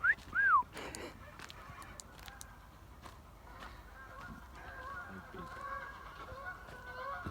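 Geese calling: two loud, short pitched calls right at the start, then a flock honking continuously from about four seconds in.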